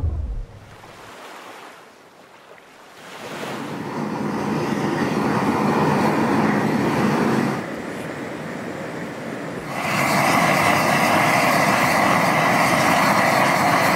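A rushing, wind-like noise builds over the first few seconds. About ten seconds in, a propane torch starts burning steadily, its flame hissing loudly as it is blown into a campfire.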